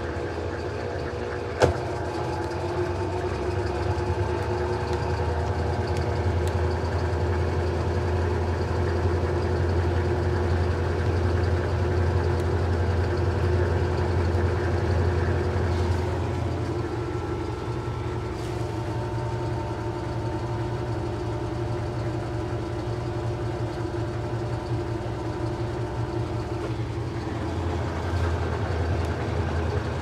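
GE top-loading washing machine in its spin cycle, the drum and agitator spinning fast with a steady motor hum. There is a single sharp click about two seconds in.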